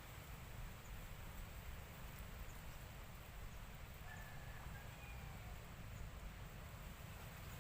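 Faint steady outdoor background with a low rumble and hiss, and a faint short bird call about four to five seconds in.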